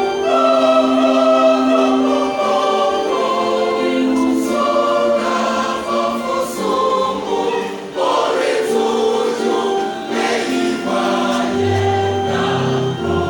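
Church choir singing a hymn in harmony, several voice parts holding notes together; a lower part comes in near the end.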